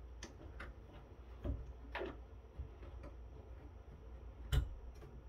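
A few light, separate clicks and taps from handling a plastic wire-harness connector and its cable inside an opened metal network-switch chassis, with a sharper tap near the end.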